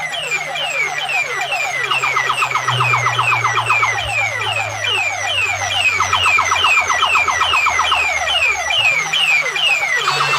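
Electronic siren-like sound effect played loud through a DJ sound system: rapid falling chirps repeating about twice a second over a steady low drone.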